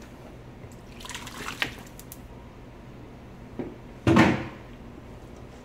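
Sliced onion dropped into a pot of water around a raw chicken, splashing twice: a lighter splash about a second in and a louder one about four seconds in.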